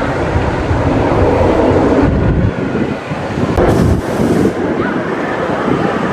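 Roller coaster trains rumbling along their track: a heavy low rumble for the first two and a half seconds, then a train running through a wooden coaster's timber structure, with a louder rush about four seconds in. Wind buffets the microphone throughout.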